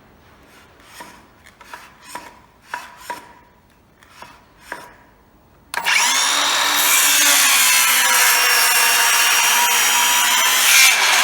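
A few light knocks, then about six seconds in a Milwaukee battery circular saw with a 165 mm blade starts and cuts through wood, running steadily under load with a slight dip in pitch as the blade bites. The motor runs normally on its repaired motor driver board.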